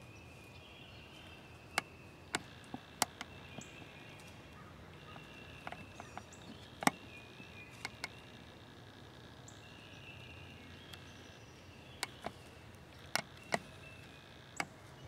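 Woodland birdsong over a steady outdoor hush, broken by about a dozen sharp snaps scattered through it, the loudest about seven seconds in and a cluster near the end.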